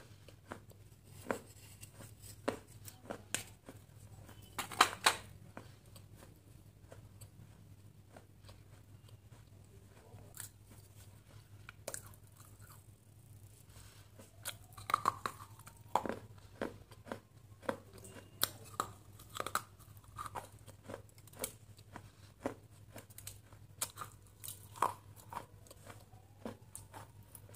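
Close-miked biting and chewing of a crunchy brown piece of food held in the fingers: irregular sharp crunches, loudest in a cluster about five seconds in.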